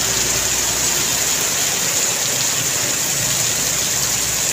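Heavy rain hissing steadily, with the engine of a dump truck loaded with sand running as it passes; the engine's low rumble fades after about two seconds.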